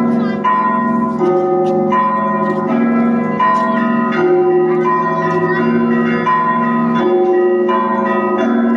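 Russian Orthodox monastery bells ringing a repeating pattern. Several bells of different pitch strike in turn, about one stroke every three-quarters of a second, each bell's tone ringing on beneath the next.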